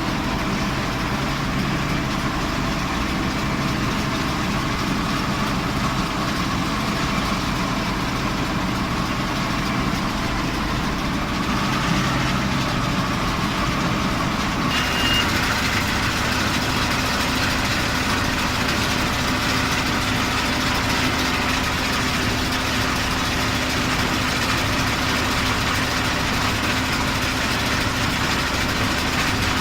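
Zetor Crystal 12145 tractor's diesel engine running steadily with a John Deere 575 round baler at work. About halfway through the sound shifts: a new steady hum comes in and the hiss grows brighter.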